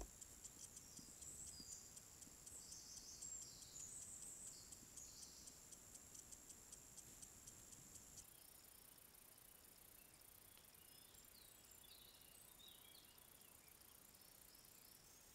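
Near silence: faint outdoor ambience from trail-camera recordings, with a steady high hiss and faint high chirps. The background changes abruptly about eight seconds in.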